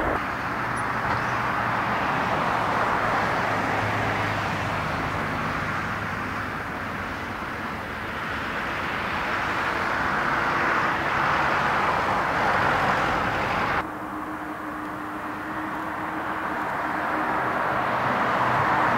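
Jet airliner engines running at taxi power as the aircraft roll past: a steady jet noise. About 14 seconds in it cuts suddenly to a quieter engine sound with a low steady hum.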